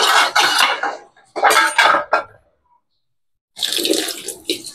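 Pot of pumpkin in coconut-milk broth at a rolling boil, bubbling and spluttering in three bursts a second or so long, with gaps of silence between them.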